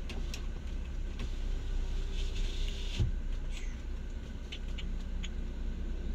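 Steady low rumble of a running car heard from inside the cabin, with a few light clicks, a short rustle and a single thump about three seconds in.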